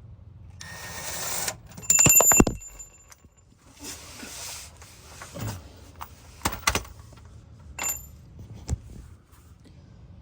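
A loose metal bolt dropping and striking the camera with a sharp metallic clatter about two seconds in, ringing briefly. A rush of noise comes just before it, and a few lighter clicks and knocks follow.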